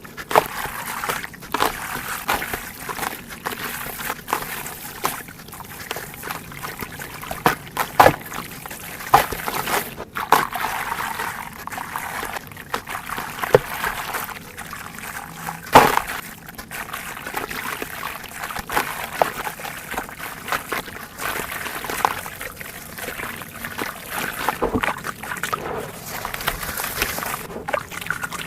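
Dried red dirt and coal pieces being crushed and crumbled: a continuous gritty crackle with many sharp snaps, the loudest about halfway through.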